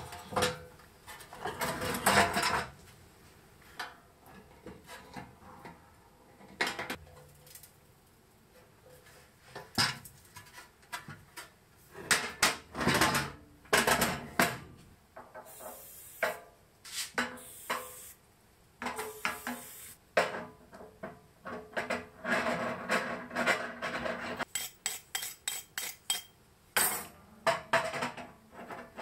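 Irregular metal clanks, knocks and scrapes as a 10-litre steel jerry can and its metal fittings are handled. A quick run of light clicks comes near the end, as steel tube legs are screwed into nuts on the can.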